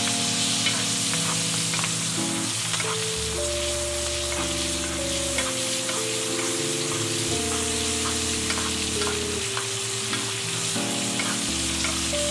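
Ribeye steaks sizzling in foaming butter in a cast iron skillet, with a spoon moving and basting in the pan. Background music with held notes that change every second or two plays over the sizzle.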